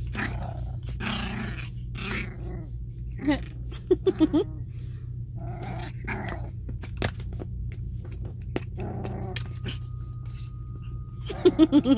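Pomchi puppy play-growling and giving short high yips: one about three seconds in, a quick run of three about a second later, and a rapid string of them near the end, with breathy huffing in between. A steady low hum runs underneath.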